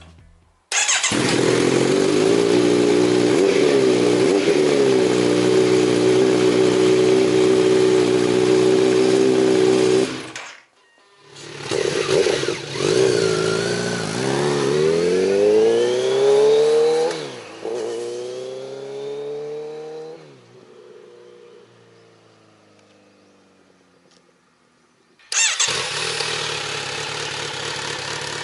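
Kawasaki Z900RS inline-four through an aftermarket Maverick silencer, running steadily for about ten seconds. After a cut it accelerates hard, its pitch rising through the gears with a drop at a shift, then fades as the bike rides away. About 25 seconds in, a second recording starts abruptly: the same bike running through a K-Factory silencer.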